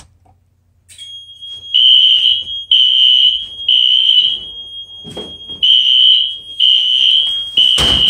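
Fire alarm system going into alarm after a smoke detector test. A steady high tone starts about a second in, then Wheelock NS horns sound a loud piercing tone in groups of three long pulses with a pause between groups, the temporal-three evacuation pattern. A sharp knock comes near the end.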